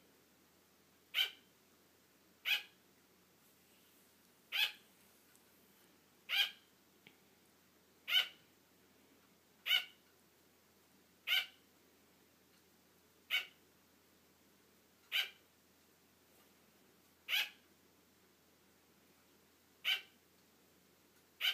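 Sugar glider barking: about a dozen short barks, one every one and a half to two and a half seconds. The sugar glider barks like this to get its owner's attention and keep them playing.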